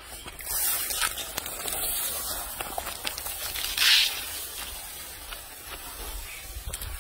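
Dried corn kernels pouring from a sack onto a dirt road, a steady rattling hiss, with a brief louder burst about four seconds in.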